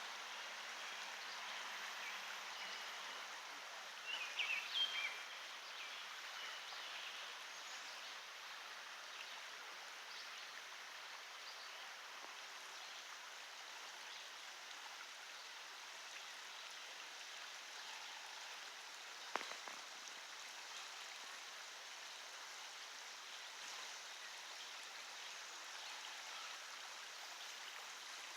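Creek water flowing over rocks in a steady, even rush. A brief cluster of louder, higher sounds comes about four seconds in, and a single sharp click about nineteen seconds in.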